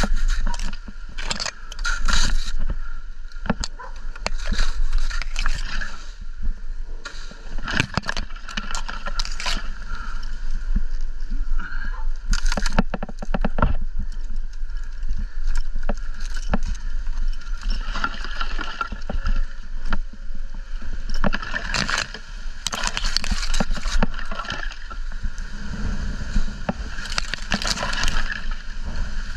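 Wind buffeting the microphone, with irregular scraping and crackling of dry palm fronds and frond bases as they are cut with a hand pruning saw.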